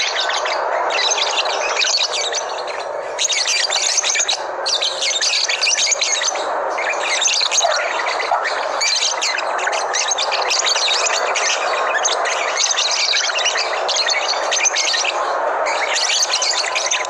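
Labet songbirds chirping and twittering rapidly in dense bursts that pause briefly every second or two, over a steady lower chatter.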